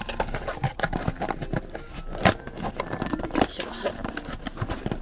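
Hands opening a cardboard blind box and pulling out its paper-wrapped contents: a busy run of cardboard and paper rustling, scraping and crinkling with sharp tearing snaps, the loudest a little over two seconds in.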